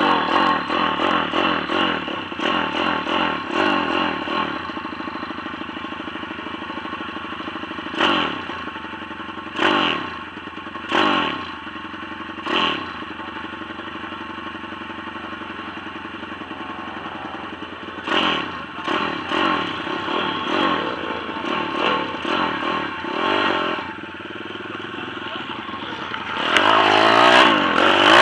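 Pit bike's small single-cylinder engine, heard close up: running with repeated short throttle blips, then revving up and accelerating hard near the end as the bike pulls away.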